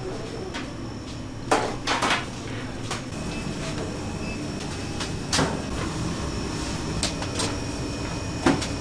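Sharp knocks and clatters from work in a bakery, coming irregularly with the loudest about a second and a half in and near the end, over a steady hum of equipment.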